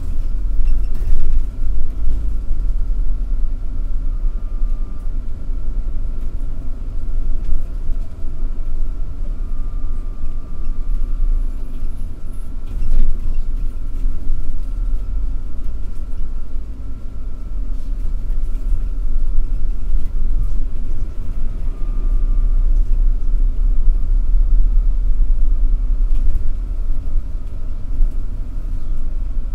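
City bus driving along a street, its engine and road rumble heard steadily from inside the cabin, with a faint thin whine above.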